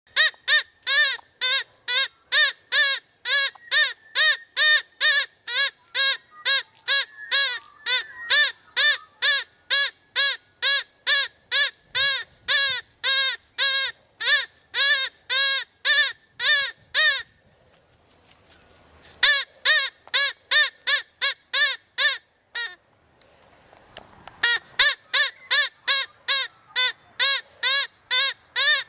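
Battery-powered electronic game caller playing a call sold as a rabbit sound: a fast string of identical short squeaky calls, about two and a half a second. The calls break off twice for a second or two.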